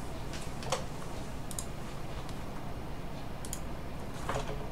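A few scattered light clicks from a computer keyboard and mouse, about five in all, over a steady low hum.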